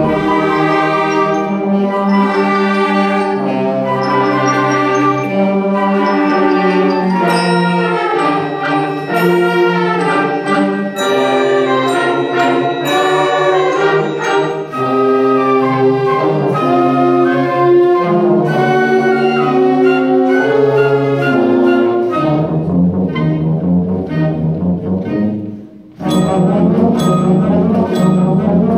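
School concert band playing, woodwinds and brass together in sustained chords that change every second or so. Near the end the sound drops away briefly, then the band comes back in.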